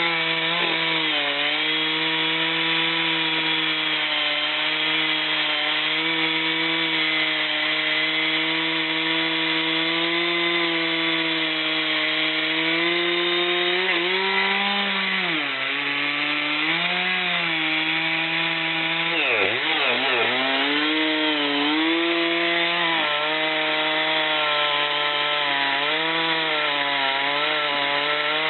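Chainsaw running at full throttle while cutting wood. Its engine pitch sags and recovers a few times as the chain loads up in the cut, with one deep drop in revs about two-thirds of the way through.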